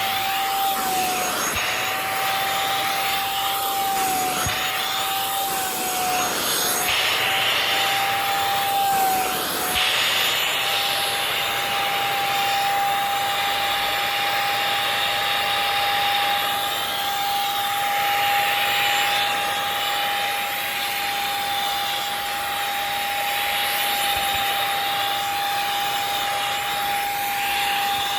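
A 500 W handheld bed vacuum cleaner running on a mattress: a steady, high motor whine over rushing air. The whine's pitch dips briefly several times in the first ten seconds, then holds steady.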